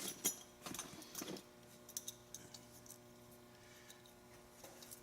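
Metal hand tools being handled and set down: a few light clicks and clinks in the first second and a half, one more small click near the end, and otherwise only a faint steady hum.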